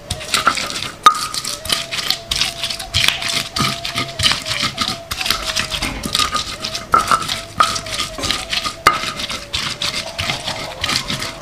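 Kitchen utensil work: repeated knocking and scraping of a hard tool against a hard surface, several strokes a second, with a few sharper clacks.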